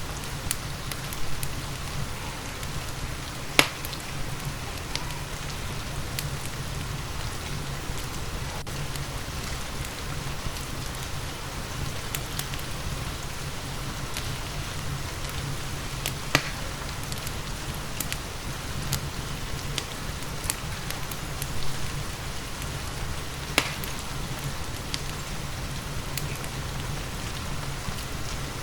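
Steady rainfall mixed with a wood fire crackling, with occasional sharp pops, the loudest about three and a half seconds in, around sixteen seconds in and near twenty-three seconds in.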